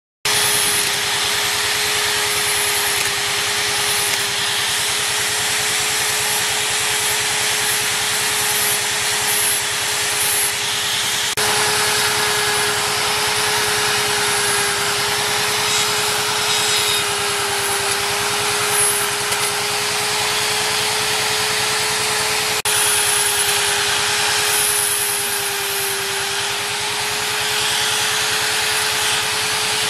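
Handheld electric rotary tool running steadily with a high whine, its burr bit grinding and carving into wood; the pitch sags slightly now and then under load. The sound breaks off and resumes abruptly twice.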